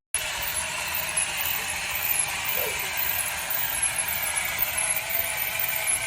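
Small electric motors and plastic gearboxes of a toy RC vehicle whirring steadily as it runs.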